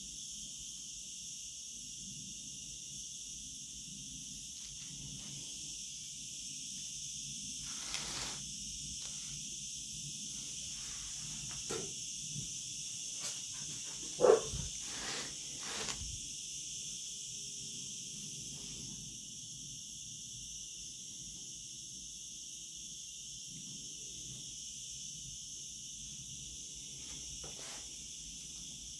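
Steady high-pitched chirring of insects, such as crickets, with two brief louder sounds near the middle.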